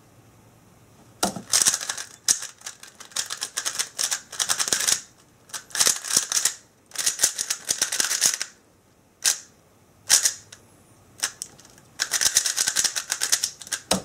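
GAN 356 Air UM 3x3 speedcube being turned fast by hand: rapid plastic clicking and clacking of the layers in dense bursts, broken by several short pauses. The turning starts about a second in and runs to the end.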